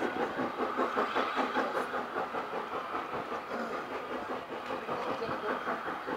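Steam-hauled passenger train running past close by, with a fast, even clatter of wheels and carriages.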